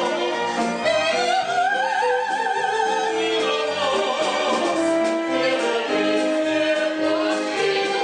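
Operetta singing: a voice with strong vibrato enters about a second in over held instrumental accompaniment chords.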